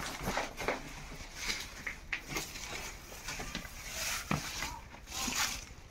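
Footsteps scuffing over gritty ground, with irregular scrapes and a sharp click about four seconds in.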